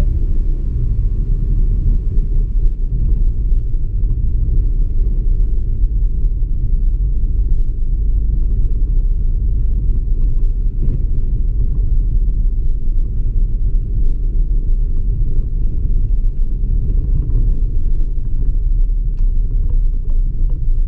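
In-cabin sound of a DS 3 Crossback with the 1.2 PureTech three-cylinder turbo petrol engine being driven: a steady low rumble of engine and tyres on the road, with faint ticks from the road surface.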